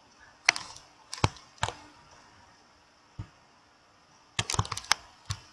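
Sharp clicks of a computer mouse and keyboard: a few single clicks spaced about half a second to a second apart, then a quick run of clicks about four and a half seconds in.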